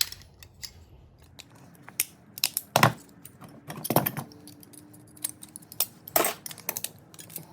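Light metal clinks and clatters, a string of separate knocks with the louder ones about three, four and six seconds in, as scrap parts from a microwave teardown are handled and set down.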